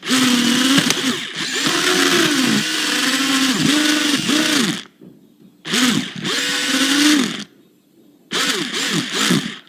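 Toy RC car's electric motor whirring in short bursts, its pitch rising and falling with each blip of the throttle. It stops twice, briefly, about five and eight seconds in.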